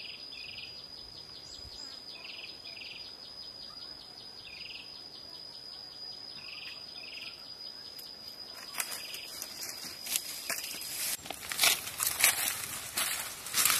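A steady high-pitched insect trill with short chirps recurring every second or two. About eight seconds in, sharp clicks and rustling start and grow louder, and the trill stops shortly after.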